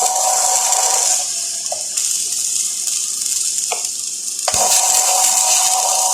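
Flux-core arc welding: the arc gives a steady hiss with a faint steady tone under it. The hiss eases off about a second in and comes back at full strength with a sharp click a little past four seconds, as the arc is struck again.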